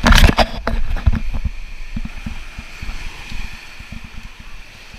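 Wind buffeting an action camera's microphone in rough, irregular gusts, loudest in the first second and easing off after.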